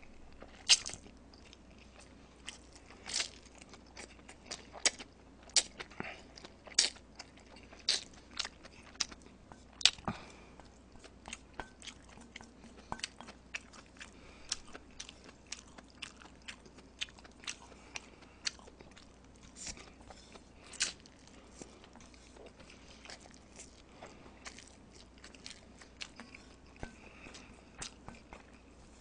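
Close-miked eating of Jjapaghetti black-bean instant noodles: chewing and slurping, with a run of sharp wet clicks that are loudest in the first ten seconds and softer after.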